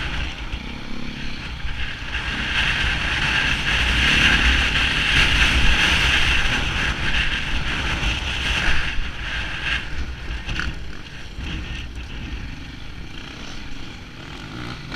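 KTM enduro motorcycle engine running under throttle on a dirt track, with wind buffeting the on-board microphone. About nine seconds in the sound drops and stays quieter as the bike slows.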